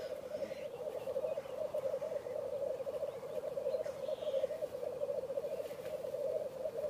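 Black grouse lek song: a continuous low bubbling chorus (rookooing) of displaying males, steady and unbroken.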